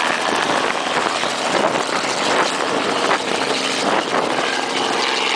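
A small propeller aircraft's engine running close by, with a loud, shifting rush of propeller wash and wind over most of the sound.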